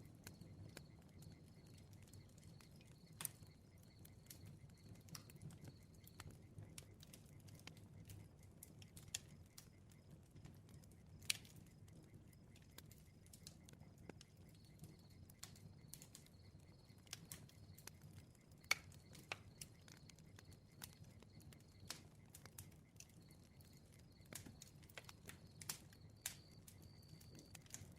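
Faint crackling campfire: irregular sharp pops and snaps over a low hum, with a few louder pops along the way.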